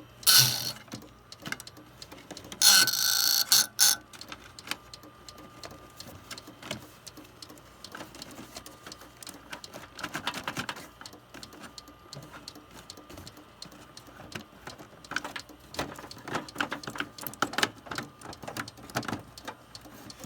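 Irregular clicking and rattling from inside an open, running Compaq desktop computer, which is making a clicking noise. There are two loud, harsh grating bursts in the first four seconds, then scattered clicks that come in denser runs in the middle and near the end, over a faint steady hum.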